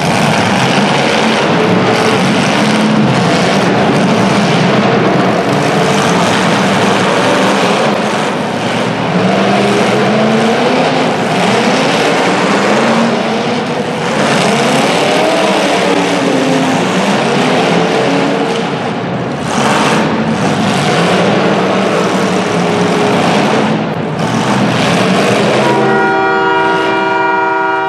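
Several demolition derby cars' engines revving over one another, pitches rising and falling, with sharp bangs of cars colliding. A steady horn-like tone of several notes sounds for about the last two seconds.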